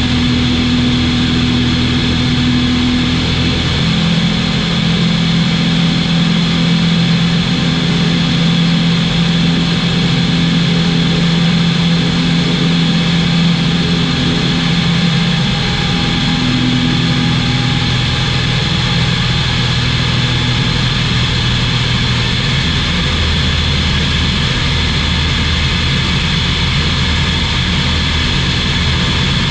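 Czech Sport Aircraft SportCruiser's Rotax 912 engine and propeller droning steadily in flight, with a rush of air noise; the low tones shift slightly in pitch a few times.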